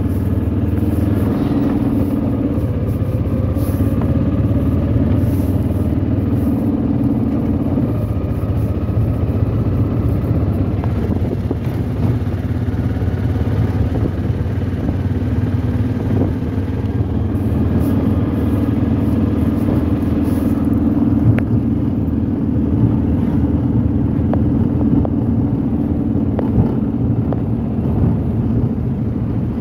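Engine and road noise heard from inside a moving vehicle, running steadily with a constant low hum.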